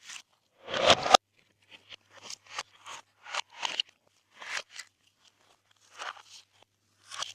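Glossy slime being mixed and squished by hand, giving a string of short crackling pops, about two a second, with the loudest about a second in.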